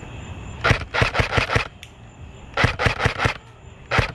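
Airsoft gun firing three quick strings of sharp shots: about eight in the first second, five more in the middle, and two near the end.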